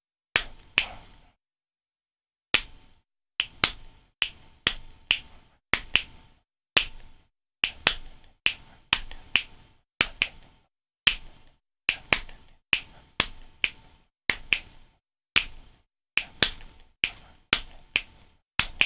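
Finger snaps and hand taps playing a polyrhythm: two hands clicking against each other in an uneven, repeating pattern of sharp clicks, with a short break about a second in.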